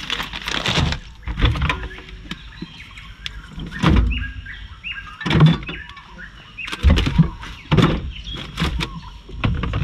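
A series of sharp knocks and clunks, several seconds apart, with birds chirping briefly in the background.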